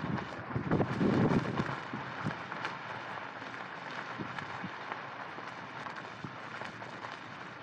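Strong desert wind buffeting the microphone, with heavy low gusts in the first second and a half settling into a steadier rush, and a few faint ticks.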